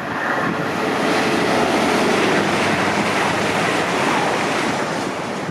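Class 701 Aventra electric multiple unit running out of the station: a loud, steady rushing rumble of wheels on rail that swells in the first second and eases a little near the end.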